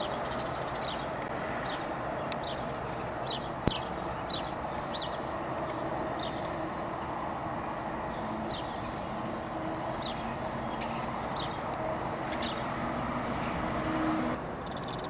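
Outdoor ambience: a steady background hum with a bird calling over it in short, high, downward-sliding chirps, repeated many times through most of the stretch. A single sharp click comes a few seconds in.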